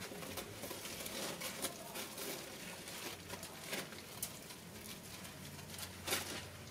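Round Moroccan bread (khobz) being torn by hand: faint crackling of the crust with scattered small clicks, one sharper crack about six seconds in.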